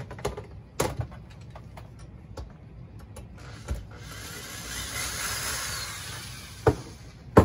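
Metal parts of a dual-monitor mount being handled and fitted with screws: scattered clicks and knocks, the loudest two near the end, and a steady noise lasting two to three seconds a little past halfway.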